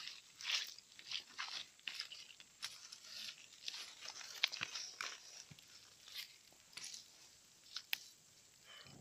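Small fire of dry bamboo and twigs crackling as dry bamboo strips are pushed into it by hand: faint, irregular dry snaps and crunches.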